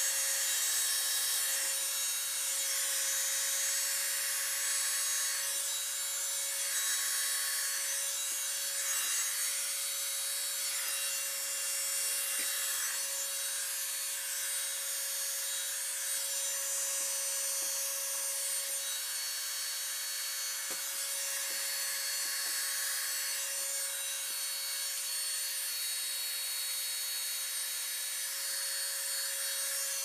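Electric heat gun running steadily, a constant airy hiss of blown air with a steady hum from its fan motor. It is heating a 32 mm plastic plumbing pipe to soften it for forming.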